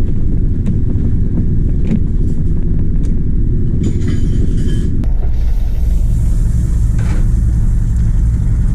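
Fishing boat's engine running with a steady low rumble, with a few brief knocks from work on deck; the sound shifts abruptly about five seconds in.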